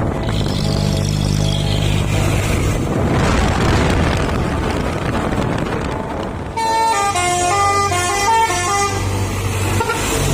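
A dump truck's engine running with a steady low hum, then a telolet horn playing a quick melody of stepping tones for about three seconds, starting about two-thirds of the way in.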